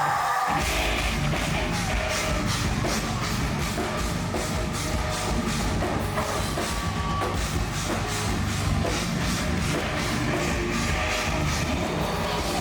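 Heavy metal band playing live, with heavy drums and regular cymbal strokes. The full band crashes in about half a second in.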